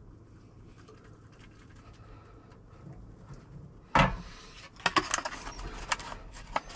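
Hot water pouring faintly from a stainless steel kettle into a pot noodle cup, then the kettle set down on a portable gas stove's metal grate with a sharp clank about four seconds in, followed by light clinks and rattles.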